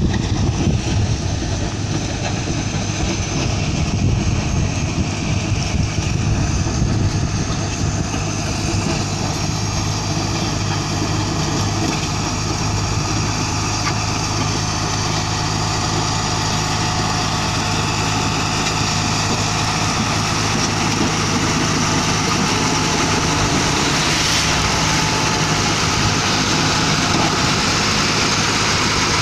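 Caterpillar 120H motor grader's diesel engine running steadily under load while it grades a gravel road shoulder, a low engine hum that becomes clearer about a third of the way in, over a constant noisy rumble.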